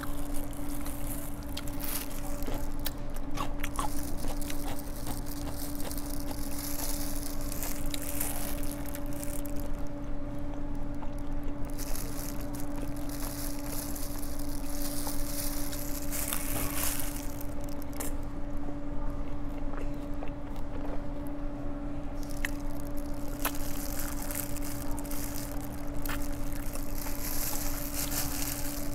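Biting and chewing of yangnyeom chicken (Korean sauced fried chicken), picked up close on a clip-on microphone, in a run of short mouth clicks and bites. A steady low hum runs underneath.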